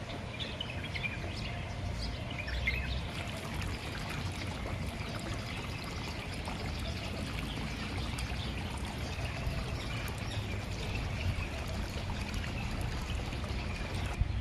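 Water running and trickling steadily in a shallow garden channel and fountain, with a few short bird chirps about two to three seconds in.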